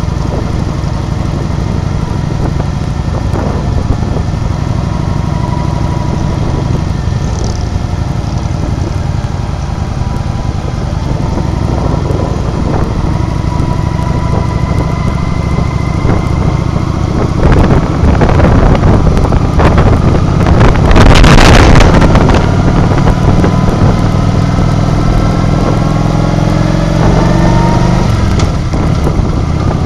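Motor vehicle engine running at low speed, its pitch slowly rising and falling with the throttle over a steady low rumble. A louder rushing noise swells a little past halfway and peaks about two-thirds of the way through, then eases off.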